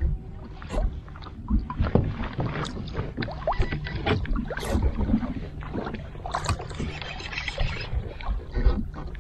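Knocks, clicks and rattles of fishing rods and tackle being handled and bumped against a plastic kayak, over a steady low rumble. A denser stretch of rattling comes near the end.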